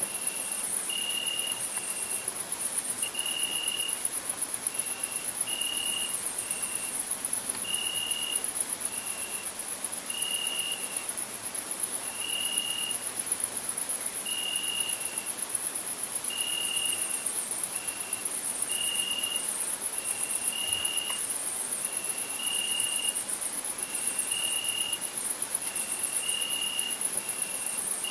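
Crickets chirping: a dense, fast-pulsing high-pitched chorus runs throughout. Over it, a lower, clearer song of short trills repeats about once a second, often paired as a longer note and a shorter one.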